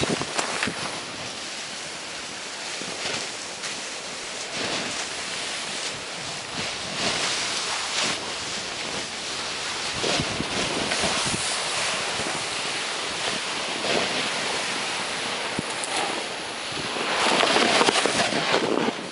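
Continuous hiss of a rider sliding and turning through soft powder snow, mixed with wind rushing over the microphone. The snow noise swells loudest near the end.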